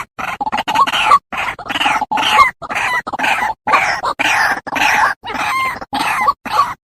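White-breasted waterhen (ruak-ruak) calling: a rapid, steady run of harsh, short calls, about two to three a second, from a played-back recording.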